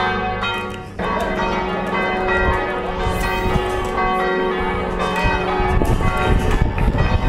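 Church bells ringing a peal, many overlapping bell tones struck over and over. About two-thirds of the way in, a low, uneven rumble joins in under the bells.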